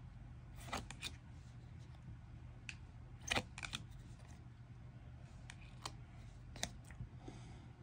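Glossy photocards being slid off a stack and laid on a pile: a scatter of light clicks and taps, the loudest about three and a half seconds in, over a faint low hum.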